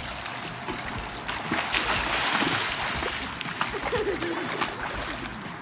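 Swimming-pool water splashing and churning as a child swims across, kicking, with irregular small splashes throughout.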